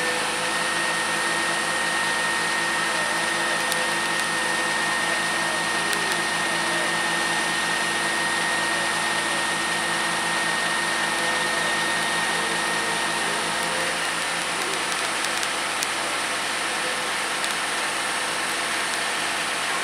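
Boom truck's engine and hydraulic crane running steadily as the boom lifts a pallet of asphalt shingles onto the roof. A high whine rides over the drone and stops about two thirds of the way through.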